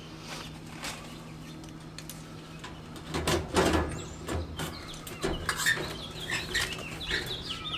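Hands working packing tape off a new steel roll-cab toolbox, with a few knocks and scrapes against the cabinet, the loudest about halfway through. Many short high chirps with sliding pitch fill the second half.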